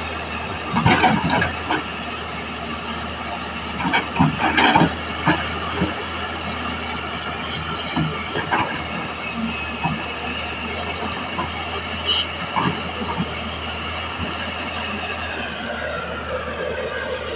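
Tata Hitachi FX220LC hydraulic excavator working: its diesel engine and hydraulics running steadily with a whine, broken by repeated clanks and knocks of the bucket and arm. Near the end the pitch of the whine shifts as the load changes.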